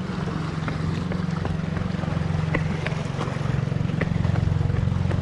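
A steady, low engine drone, with a few faint light ticks over it.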